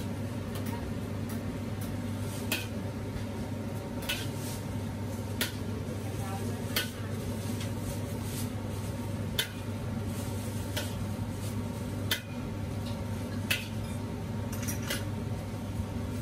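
Metal spatula clanging and scraping against a large wok and a stainless steel bowl as diced chicken is stir-fried and scooped out, a sharp clang about every one and a half seconds over a steady low hum.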